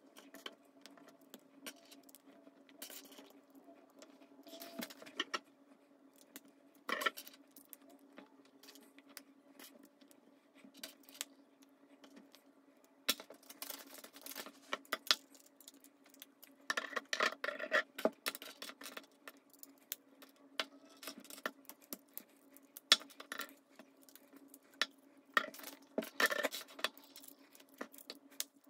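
Plastic Lego bricks clicking and clattering as they are picked up, sorted and pressed together by hand: scattered sharp clicks in irregular clusters. A steady low hum runs underneath.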